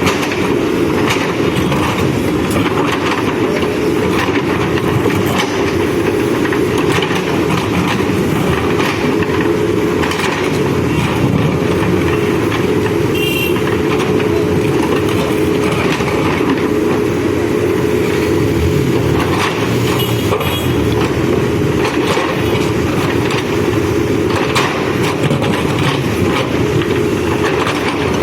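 Backhoe loader's diesel engine running steadily while it works, with scattered knocks from the machine, and a brief high chirp about halfway through.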